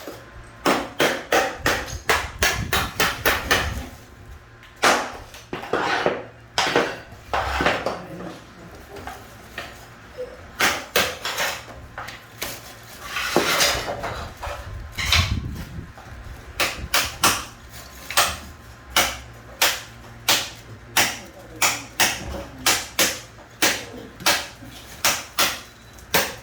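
Repeated hammer strikes on tile work, sharp hard knocks coming in quick runs of several blows with short pauses between.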